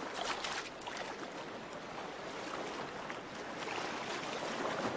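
Sea water lapping and sloshing at the surface, with a few small splashes within the first second.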